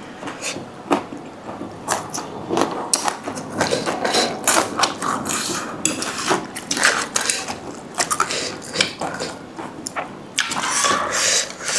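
Noodles being eaten close to the microphone: irregular slurps and chewing, with clicks and scrapes of utensils against a bowl.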